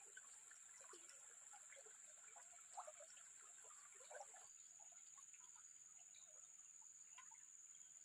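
Near silence: faint waterside ambience, a steady high-pitched drone with small scattered ticks and trickling.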